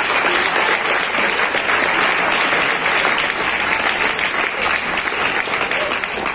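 Audience applauding: many people clapping at once, steady and sustained.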